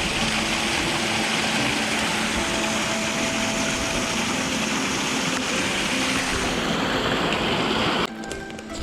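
Mountain stream rushing over rocks, a loud steady wash of water that cuts off suddenly near the end.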